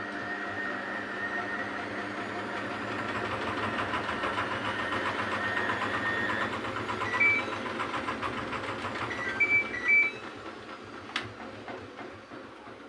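Samsung washing machine running with a steady motor hum that grows louder over the first few seconds. A short beep comes about seven seconds in, a few more near ten seconds, then a sharp click, before the machine's sound fades at the end.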